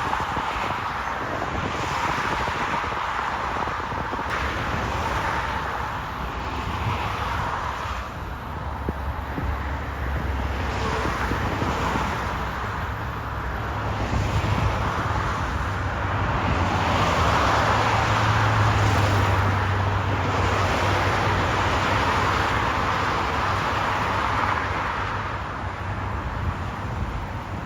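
Road traffic: a continuous wash of passing vehicles, swelling and fading as they go by, with a low steady drone through the middle.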